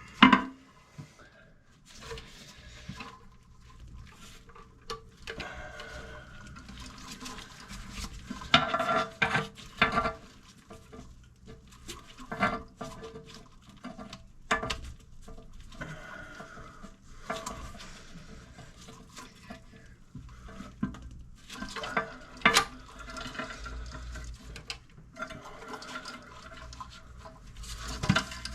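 Water splashing and trickling in a toilet tank, with irregular clicks and knocks of hands and plastic parts being handled in it. The sharpest knocks come just after the start, in a cluster around nine seconds in, and about 22 seconds in.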